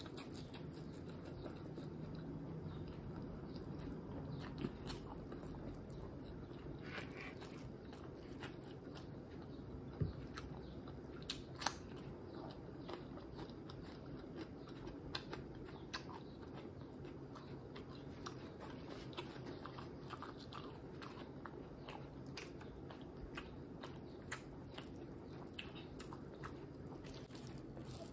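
A person chewing mouthfuls of sunny-side-up fried egg, with many small scattered mouth clicks and two sharper clicks around ten and twelve seconds in, over a steady low background hum.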